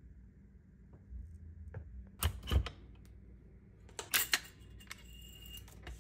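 Metal clicks and clacks of a Q Honey Badger rifle being taken apart by hand, the upper and lower receivers coming apart: two sharp clacks about two seconds in, a quick cluster of clicks around four seconds, and a brief ringing scrape near the end.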